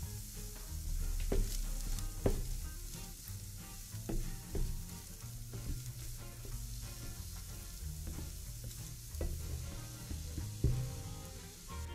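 Food sizzling as it fries in a pan, with a utensil stirring it and knocking against the pan about six times.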